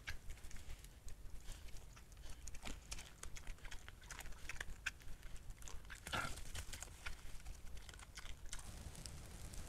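Wild boar feeding on the ground: irregular crunching and clicking of chewing and rooting, with one louder, longer sound about six seconds in.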